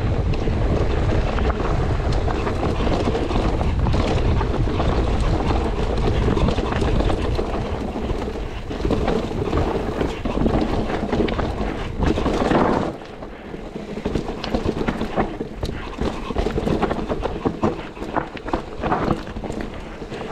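Mountain bike riding down a rough trail: wind rushing over the microphone, tyres rolling over dirt and rock, and the bike rattling and knocking over bumps. It gets quieter about two-thirds of the way through, leaving mostly the rattle and clicks of the bike.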